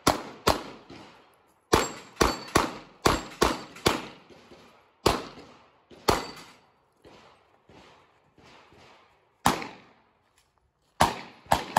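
Gunshots from a compensated Glock 43X 9 mm pistol fired in fast strings: a quick run of shots over the first four seconds, single shots about five and six seconds in, then a pause of a few seconds before more shots near the end.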